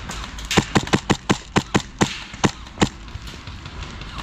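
Airsoft gun firing a quick string of about ten sharp shots that start about half a second in, come close together, then slow to a last couple before stopping.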